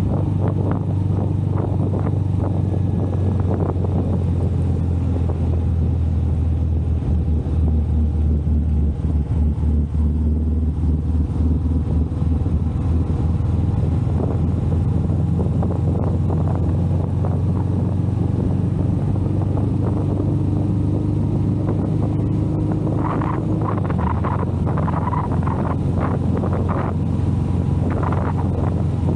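Royal Enfield Meteor 350's single-cylinder engine running steadily at cruising speed, a constant low drone. Irregular gusts of wind noise over the microphone come in over the last few seconds.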